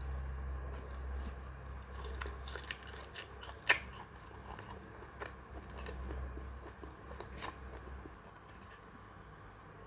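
Close-miked eating sounds: a bite into a garlic pork sausage, then chewing with scattered wet mouth clicks. One sharp click just before four seconds in is the loudest sound.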